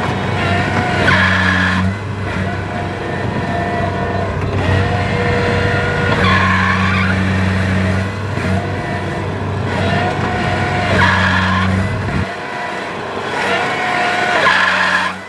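Kubota combine harvester's diesel engine running hard while it tries to tow a tractor stuck in mud. A squeal comes back four times, a few seconds apart, and the low engine drone drops away about twelve seconds in.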